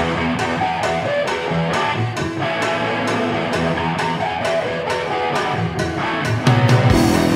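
Guitar music with a steady beat, starting suddenly out of silence.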